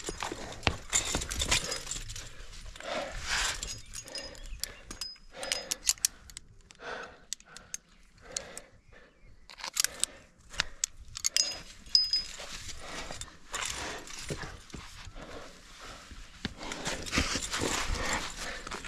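A rock climber breathing hard in a run of heavy puffs while laybacking up a strenuous crack, with metal climbing gear clinking now and then.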